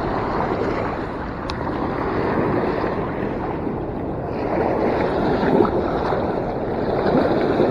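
Fast river current running, a steady rush of moving water, with wind buffeting the microphone.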